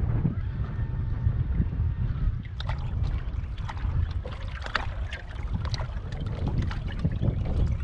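Wind buffeting the microphone in a steady low rumble, with water lapping and slapping against a bass boat's hull. From about two and a half seconds in, a run of short, irregular splashy slaps comes through.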